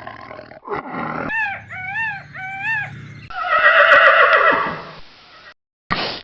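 Animal calls: three short high cries that rise and fall, then a louder, harsher call that fades, followed by a sudden cut to silence.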